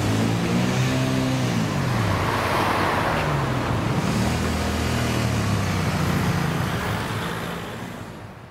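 Cars driving past one after another on a wet road, engines running and tyres hissing on the wet asphalt. Two pass close, their engine pitch dropping as they go by, and the sound fades out near the end.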